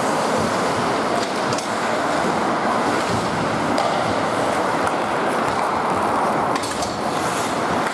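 Ice hockey play in a large indoor rink: a steady wash of skates scraping the ice and echoing hall noise, with a few sharp stick-and-puck clacks.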